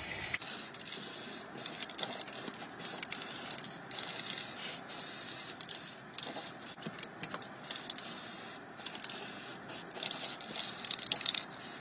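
Aerosol spray can of grey primer hissing in a run of short passes, broken by many brief pauses as the spray stops and starts.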